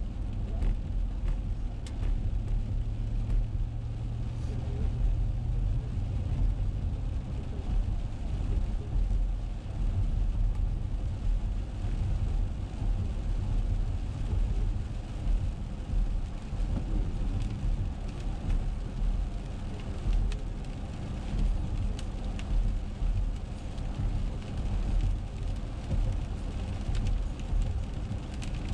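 Car cabin noise while driving on a wet road: a steady low rumble of engine and tyres on wet pavement, with scattered raindrops ticking on the windshield.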